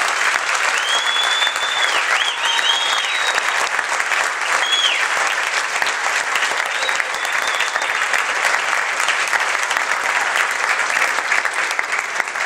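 Concert audience applauding steadily, with several high rising-and-falling whistles in the first five seconds.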